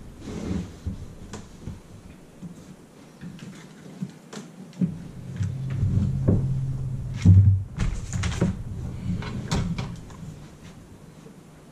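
Scattered knocks, clicks and bumps of a person moving about inside a fibreglass bass boat and handling tools and parts at the console, with a dull rumbling stretch in the middle and the loudest thump about seven seconds in.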